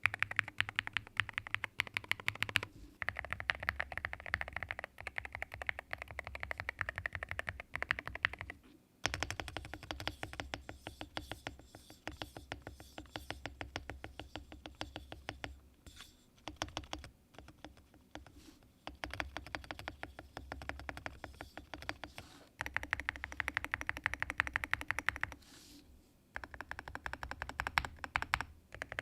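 Rapid, continuous typing on an Akko MU01 mechanical keyboard with a walnut wood case and thick keycaps: a dense stream of keystroke clacks, broken by brief pauses every few seconds.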